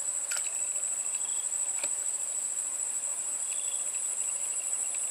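Insects calling in a steady, high-pitched drone, with a few faint short chirps over it.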